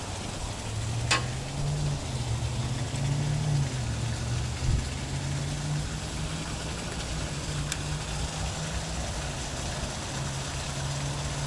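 A motor running with a low, steady hum whose pitch steps up and down between two levels, over a background hiss. There is a sharp click about a second in.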